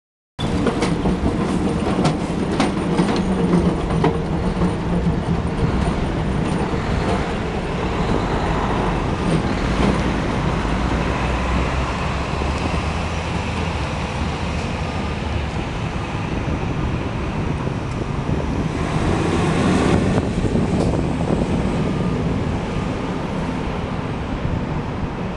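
1928 Melbourne W2-class electric tram running past, its steel wheels clicking sharply over the track crossings in the first few seconds, then rumbling away along the rails. A broad swell of street-traffic noise comes about twenty seconds in.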